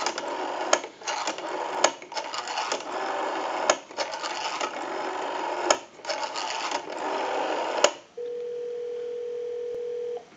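Rotary telephone dial of a Western Electric 554 wall phone being wound and released digit after digit, its pulses clicking and rasping on the line as heard through an amplified line pickup. About eight seconds in, a steady ringback tone comes on for two seconds, showing the call is ringing through at the far end.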